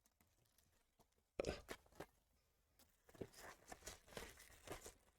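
Trading-card packs and cards being handled: a sudden rustle about a second and a half in, then faint, intermittent rustling and crinkling of wrappers.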